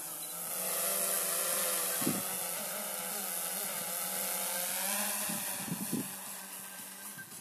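DJI Mavic 2 Zoom quadcopter's propellers buzzing as it hovers and climbs, the pitch shifting a little as it manoeuvres, then fading over the last second or so as it flies off. A few short low thumps about two seconds in and again near six seconds.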